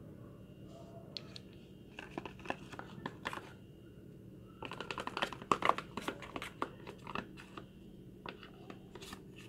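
Crinkling and clicking of a clear plastic container being handled, in two spells of quick small crackles, the second busier and louder, about halfway through.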